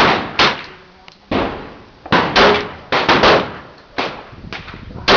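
Glock 21SF .45 ACP pistol firing a rapid string of shots, about ten at uneven spacing, each a sharp crack with a short echoing tail, some quieter than others.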